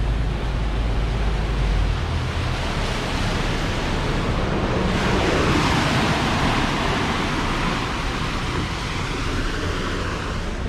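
Churning wake water rushing behind a twin-engined motor yacht, with wind buffeting the microphone. The low engine drone falls away about two seconds in as the yacht is throttled back from planing speed, and the rush of water swells around the middle.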